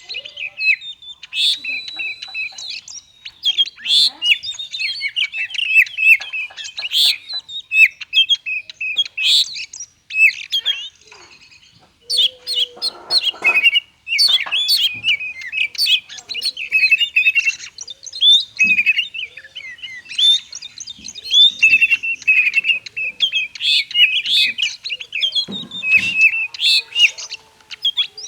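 Oriental magpie-robin (kacer) singing a rapid, jumbled run of varied chirps and whistles, the 'konslet' style of song used to stir other kacer into singing, with a short pause partway through.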